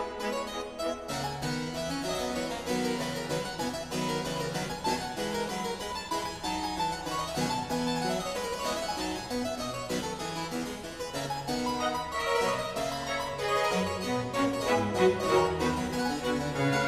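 Instrumental background music with a steady stream of quick notes.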